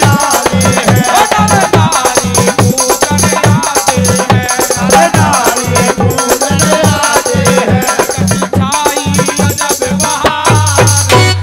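Instrumental Haryanvi ragni accompaniment: a wavering, ornamented melody line over a steady, repeating drum rhythm, with rattling percussion on top.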